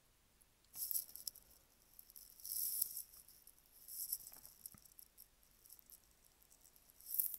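Faint handling noise: four short, dry rustling scrapes as hands and brush work on a plastic miniature held on a plastic painting handle and turn it.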